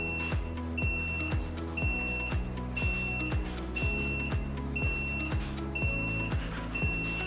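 Background electronic music with a steady beat, over a high-pitched beep that repeats about once a second.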